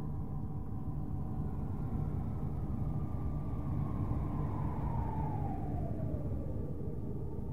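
Space recording of Saturn's rings turned into sound: a dense, low rumbling drone with faint steady tones over it. From about three seconds in, one tone slowly slides down in pitch until near the end.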